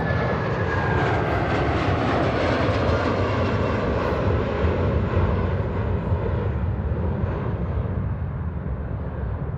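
Boeing 757's twin turbofan engines at takeoff power as it climbs out close by: a loud, steady jet roar with a high fan whine that drops slightly in pitch in the first second or so. The roar eases a little near the end.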